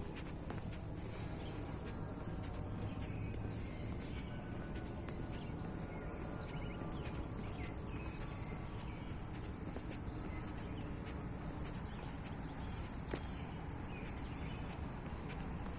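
Forest ambience: a high, rapid pulsing trill comes and goes three times over a steady low background rumble.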